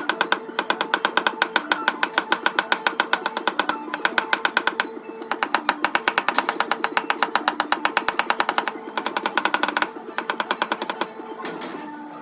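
Rapid tapping of a metal knockdown tool on a car fender's sheet metal, about ten light strikes a second in long runs with short pauses, as paintless dent repair taps down the high spots around a creased body-line dent. Background music plays underneath.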